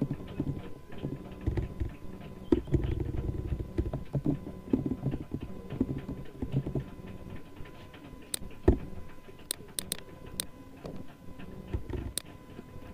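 Computer keyboard typing in quick runs of soft key taps, then a few separate sharp clicks, as of a mouse button, later on.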